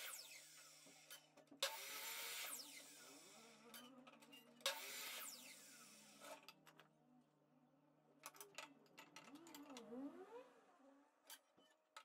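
Makita compound miter saw making two short cuts through a wooden strip, about a second and a half in and again about four and a half seconds in, each ending with the blade spinning down in a falling whine. Later come light clicks and knocks as the cut wood is handled on the saw table.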